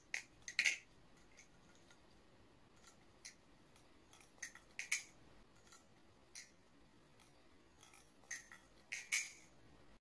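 Pink balisong (butterfly knife) being flipped through a half Murnax trick: its handles and blade clack and click against each other in quick clusters. The loudest clicks come just after the start, around halfway and near the end, with scattered single ticks between.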